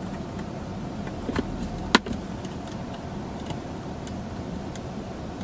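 Cables and plugs being handled and pushed into sockets: small clicks and rattles, with one sharper click about two seconds in, over the car's steady low cabin hum.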